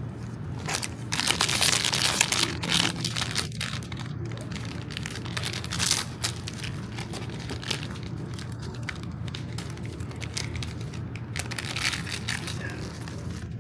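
Blind-box packaging being handled, crinkling and tearing open in bursts, loudest from about a second in and again near six and twelve seconds, over a steady low hum.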